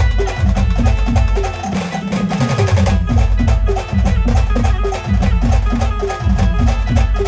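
Street band music with heavy drumming: a steady, fast beat of drum strikes under a repeated short melodic figure. The bass drops out briefly about two seconds in, then the beat picks up again.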